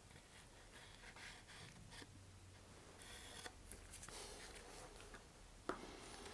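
Faint scratching and rustling of a wooden dowel working thick epoxy into a hole in a paper rocket body tube, with gloved hands handling the rocket, and one light tap near the end.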